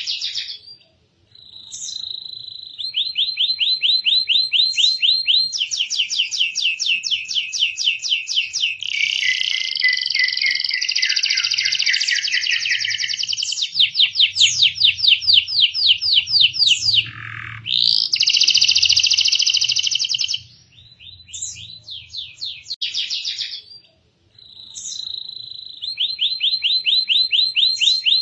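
Domestic canary singing: long rolling trills of rapidly repeated notes, one phrase running into the next, with short pauses about a second in and near the end and a quick falling note midway.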